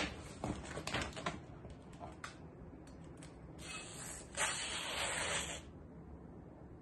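IKEA 365+ stainless-steel cook's knife slicing through a catalogue page to test its sharpness: a papery hiss that starts about three and a half seconds in and lasts about two seconds. Before it, a few light clicks and rustles of the paper being handled.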